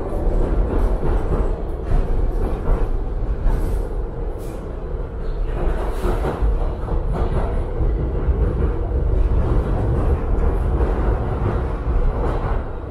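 New York City subway train running on the rails: a loud, steady rumble with a constant hum and scattered clicks and clatter from the track.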